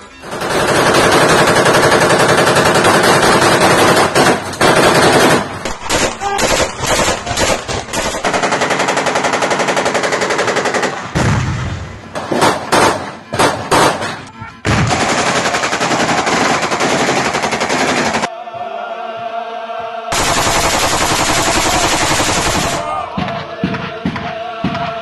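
Automatic rifle fire in long, rapid bursts, broken by stretches of separate single shots, with a short lull about two-thirds of the way through.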